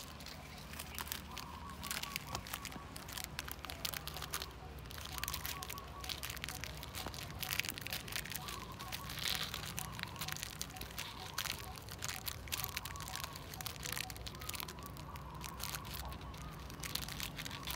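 A puppy chewing and tearing at a foil-lined plastic snack wrapper, with irregular crinkling and crackling throughout.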